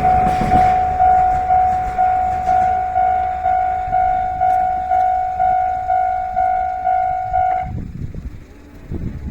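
Japanese railway level-crossing warning bell ringing steadily, about two dings a second, over the fading rumble of the passing train in the first second. The bell stops abruptly about three quarters of the way through as the crossing is released.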